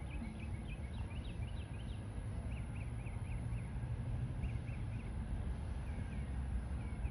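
Small birds chirping in short series of quick high notes, over a steady low rumble.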